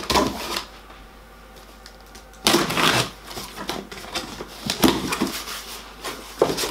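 Box cutter slicing through the packing tape on a cardboard box in a few short scraping strokes, the longest about two and a half seconds in, then cardboard flaps pulled open near the end.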